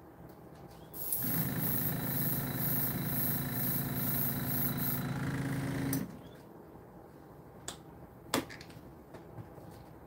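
Small airbrush compressor running with air hissing through the airbrush for about five seconds, starting and stopping abruptly. A couple of sharp clicks follow.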